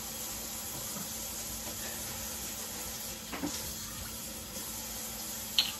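Cooking oil pouring from a plastic bottle into a non-stick frying pan, a faint trickle over a steady hiss. A small knock about halfway through and a sharp click near the end.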